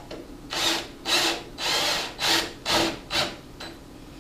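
Six short rasping bursts, each about half a second long, as a tool works at the muffler's mounting bolt on a riding-mower engine.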